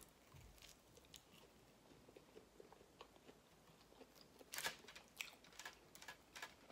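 Faint chewing and mouth clicks from a person eating vegan chicken nuggets, with a short cluster of sharper clicks a little past halfway.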